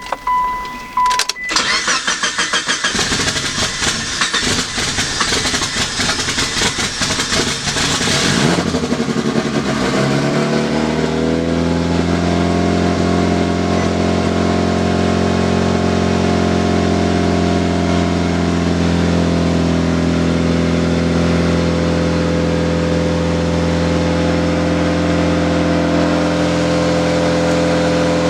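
Mitsubishi Lancer Evolution IX's turbocharged 4G63 four-cylinder cold-started after an oil change: a short electronic chime, then the starter cranking for about seven seconds before the engine catches, flares briefly and settles into a steady fast cold idle.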